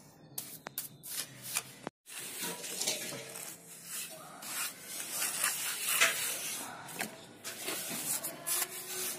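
Mason's steel trowel scraping and rubbing across wet cement plaster, a run of rasping strokes, with a few sharp clicks of the trowel in the first two seconds.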